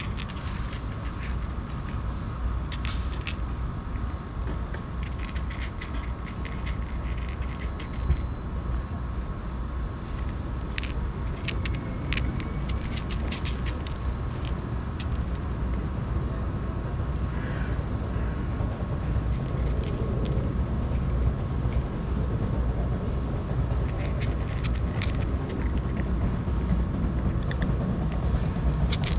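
A cat crunching dry kibble: small scattered clicks over a steady low outdoor rumble.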